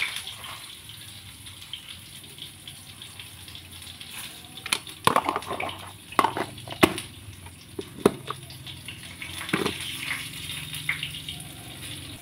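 Scattered knocks and clicks of hands handling ingredients at a stone mortar (cobek) of chillies, shallots and garlic, most of them clustered between about five and ten seconds in, over a steady background hiss.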